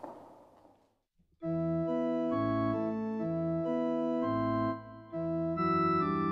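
Organ playing slow, sustained chords. It starts suddenly about a second and a half in, with a brief break near five seconds. The first second holds only faint room noise fading away.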